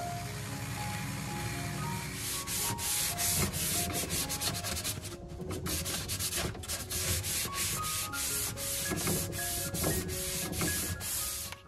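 Sanding sponge rubbed by hand along the edge of an oak shelf in quick, irregular strokes, scuffing up the old finish. Background music with a melody plays under it.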